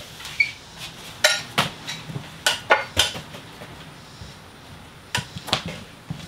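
Metal engine parts clinking and clanking as they are shifted and picked up, a string of sharp knocks, most of them between about one and three seconds in and a few more near the end.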